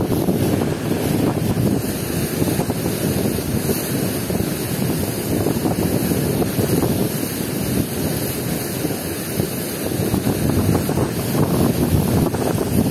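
Fast, foaming river water rushing and churning in a steady, loud roar, with wind buffeting the microphone.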